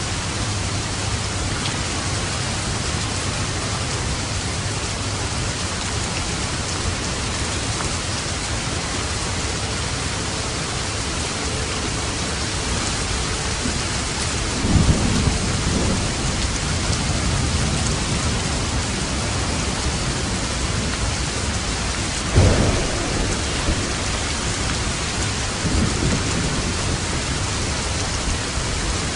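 Steady rain falling, with low rolls of thunder about halfway through and again a little later.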